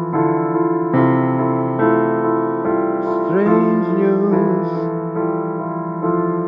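Song music: a keyboard playing sustained chords that change about once a second, with a brief sliding tone about halfway through.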